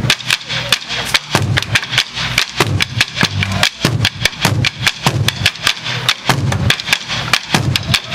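An ensemble of Burundian ingoma drums, tall wooden drums beaten with wooden sticks, playing a fast, steady rhythm: rapid sharp stick strokes over deep, repeated drum beats.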